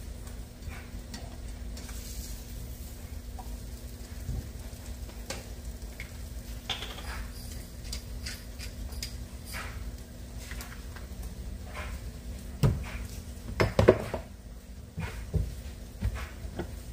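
A metal utensil clinks and scrapes against a large metal pan of thick sausage gravy as it is stirred. Several louder knocks come near the end, over a steady low hum.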